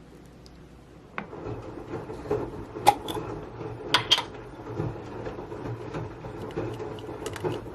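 A small motor starts with a click about a second in and hums steadily, with scattered sharp clicks and knocks over it.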